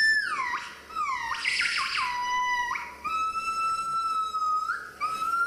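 Gibbon song: a run of clear, whistle-like hoots, the first few sliding steeply down in pitch, then long held notes that step up and rise slightly near the end.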